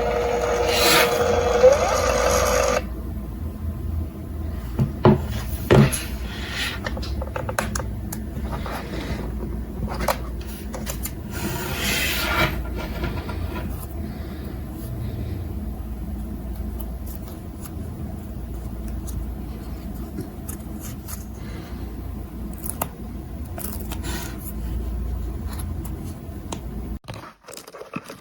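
Steady whirring tone for the first three seconds, then rubbing, scraping and a few sharp clicks of objects being handled, over a constant low rumble.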